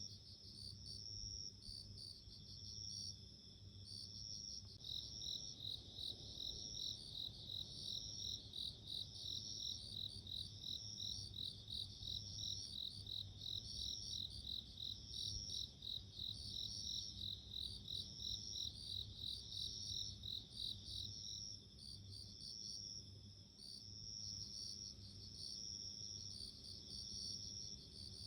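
Japanese bell crickets (suzumushi) singing: ringing chirps repeating about once a second, joined from about five seconds in by a faster, lower run of chirps that stops about three quarters of the way through.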